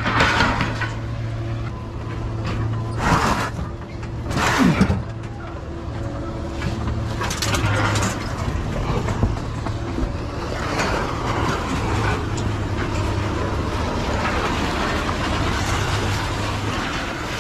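Heavy diesel machinery at a scrap pile running steadily, with several loud crashes in the first five seconds, typical of scrap metal being dropped or shifted.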